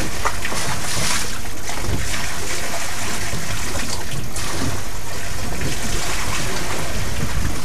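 Steady rushing noise of open-sea water around a fishing boat's hull.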